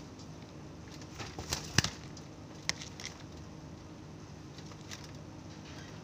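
Scattered light clicks and taps from zebra doves moving about in a wire cage, the loudest about two seconds in, over a steady low hum. The doves do not coo.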